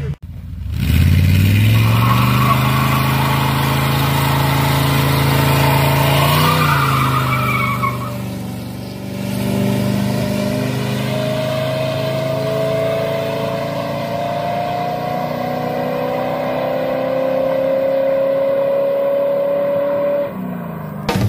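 Chevy 454 big-block V8 in a C20 pickup run hard through a burnout: the engine climbs in pitch over the first few seconds, drops off briefly about eight seconds in, then pulls away under throttle and fades near the end.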